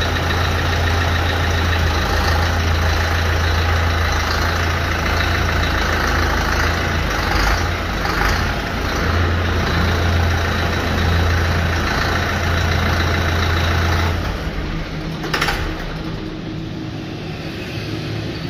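YTO EF804 tractor's diesel engine running steadily, then its note drops and the sound quietens sharply about fourteen seconds in. A single sharp click follows about a second later.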